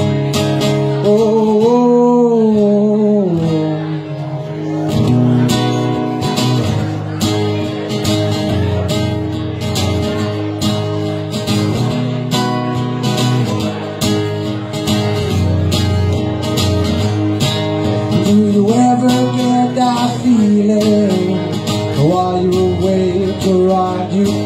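Acoustic guitar strummed in a steady rhythm, with a man's voice singing drawn-out, gliding notes over it at the start and again near the end.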